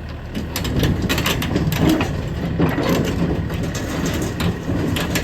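Sany SY95C excavator's diesel engine running steadily, with repeated sharp metallic clanks and knocks from the machine working.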